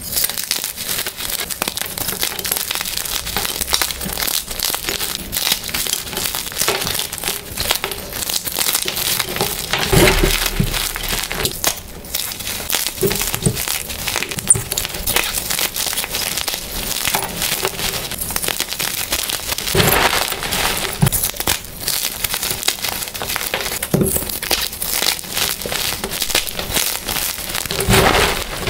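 Dyed gym chalk blocks snapped and crushed by hand, a dense continuous crunching and crumbling with sharp crackles throughout. Louder crunches come about ten seconds in, about twenty seconds in and near the end.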